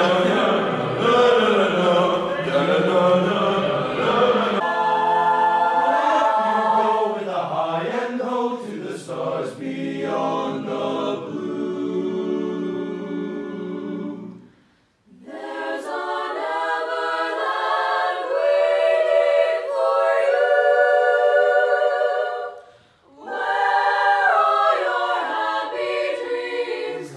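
A group of voices singing a cappella in held, shifting chords. The singing breaks off briefly twice, near the middle and again later on.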